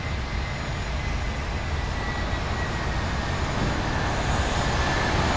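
Jet engines of a Boeing 737-300 (CFM56-3 turbofans) at taxi power: a steady rumble with a faint high whine that slowly drops in pitch, growing gradually louder.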